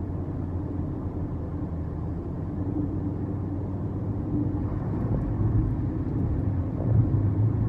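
Steady low rumble of road-vehicle engine and tyre noise, growing louder in the last few seconds.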